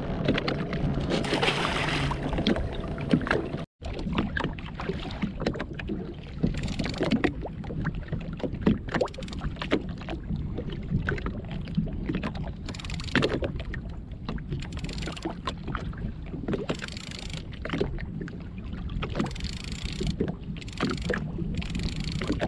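Water slapping and splashing against the hull of a drifting Sea-Doo GTX jet ski in short, irregular bursts, over a steady low rumble of wind on the microphone.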